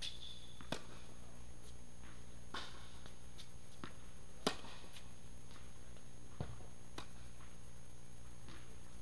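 Tennis balls being struck on an indoor court: a sharp racket-on-ball hit about four and a half seconds in, the loudest, with fainter pops of other hits and bounces around it and a brief shoe squeak at the start, over a steady low hum.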